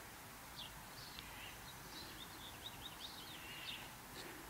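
Faint bird chirps and a short, quick trill of repeated notes over quiet background noise.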